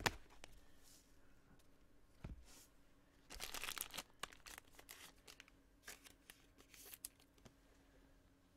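Faint handling of trading cards and their packaging: a few light taps and clicks, and a brief rustle of wrapper or sleeve about three seconds in.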